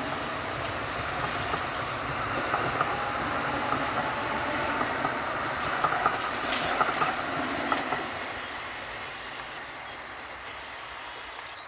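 DART electric light rail train running past, loudest a little past halfway and fading over the last few seconds. A thin, high steady tone sounds near the end.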